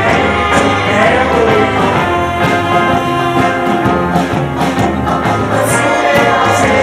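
Live band playing a full, loud ensemble passage on electric guitars, banjo and drum kit, with a saxophone.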